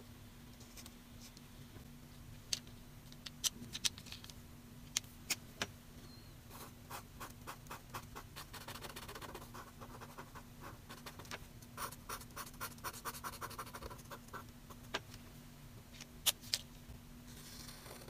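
Marker tip rubbing on paper in a fast run of short back-and-forth colouring strokes through the middle. Scattered sharp taps and clicks come before and after the run.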